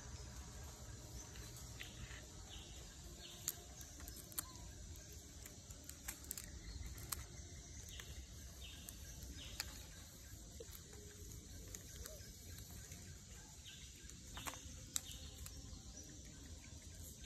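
Faint forest ambience with insects calling in short repeated bursts, broken by several sharp clicks scattered through.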